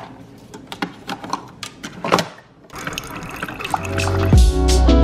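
Plastic clicks and rattles as a K-cup is taken from a pod drawer and loaded into a Keurig single-serve coffee maker, then the brewer running as coffee pours into a mug. Near the end a lo-fi beat with drums and deep bass comes in, louder than the brewing.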